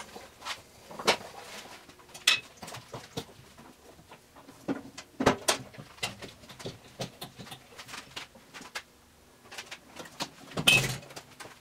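Hand pallet jack being worked under a lathe: irregular clicks and knocks as it is positioned, lifted and pulled, with one louder clunk near the end.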